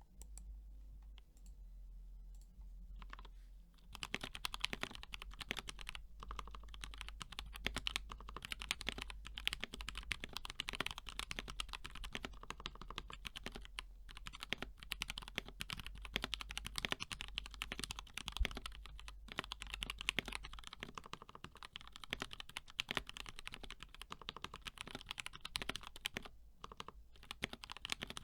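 Typing on a mechanical keyboard with lubed and filmed KS3 black switches on an aluminium plate in a BM60 case, with lubed Durock V2 stabilisers and HK Gaming keycaps. A few scattered keystrokes at first, then fast, continuous typing from about four seconds in, with short pauses.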